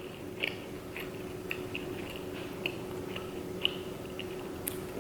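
A person chewing a mouthful of sesame chicken: soft, wet mouth sounds with small clicks scattered through, over a faint steady hum.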